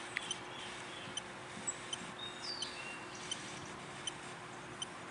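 A bird chirping outdoors: short, faint chip notes repeated every second or so, with one brief sliding whistle about two and a half seconds in.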